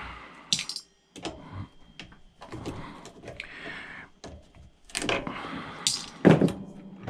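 Scrap metal being handled: irregular clinks, knocks and clatter of small metal pieces, with a louder knock about six seconds in.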